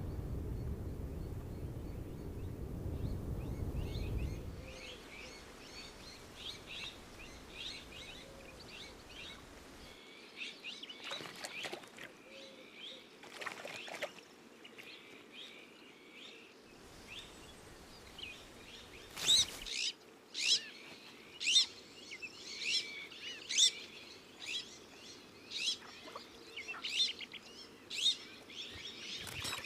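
Small songbirds chirping and calling, many short high chirps that grow into loud, sharp chirps repeated about once a second in the last third. A low rumble underneath stops about four seconds in.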